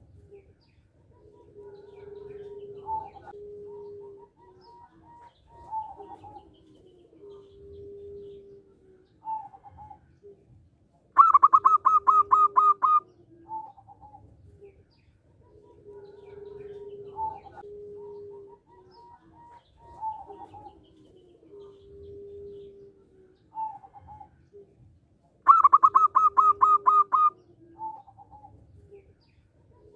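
Zebra dove (perkutut) singing. It gives two loud, rapid runs of staccato coos, about ten clipped notes each, one near the middle and one near the end. Softer, lower cooing goes on in between.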